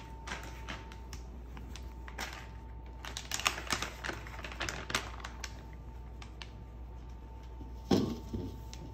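Crinkling and clicking of a flour package being handled and shaken over biscuit dough in a stainless steel mixing bowl, a quick run of sharp clicks in the middle, then one louder knock near the end.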